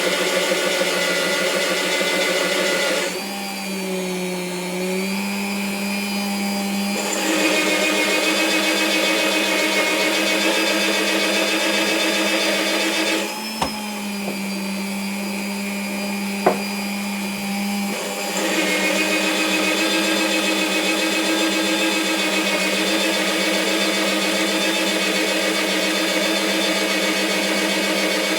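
Bosch PBD 40 bench drill's electric motor running with a steady, pitched hum. Twice its tone drops and shifts for a few seconds, about three seconds in and again from about thirteen to eighteen seconds, with a sharp click at about thirteen and a half and at about sixteen and a half seconds.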